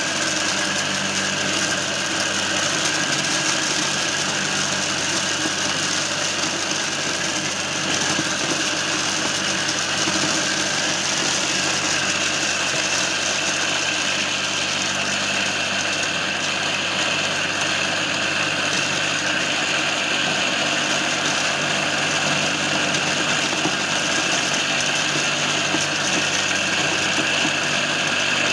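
Homemade mini corn sheller running steadily: a belt-driven electric motor salvaged from a water pump spins the shelling drum with a low hum, over a continuous dense rattle as dry kernels are stripped from cobs pushed in by hand.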